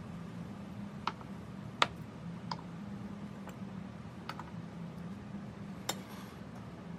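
A handful of light, sharp clicks and taps, spaced irregularly with one louder than the rest about two seconds in, over a low hum.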